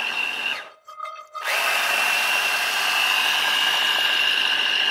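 Small electric mini chopper (food processor) running as it blends basil pesto, with a steady high whine. It stops briefly just under a second in and starts again about half a second later.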